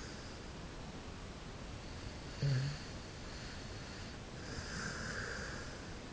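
A sleeping dog snoring: one short, low snort about two and a half seconds in, then a longer breathy breath near the end.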